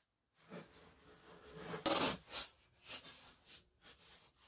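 Blue painter's tape and plastic sheeting being handled and rubbed down while masking a panel: irregular rubbing and crinkling, loudest for about half a second around two seconds in.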